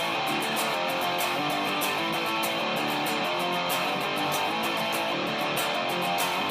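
Intro music with strummed guitar over a steady beat.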